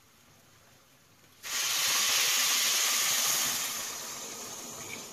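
Hot water poured from a pan into a hot pot of ghee-fried rice, hissing and splashing as it hits. It starts suddenly about a second and a half in, stays loud for about two seconds, then slowly dies down.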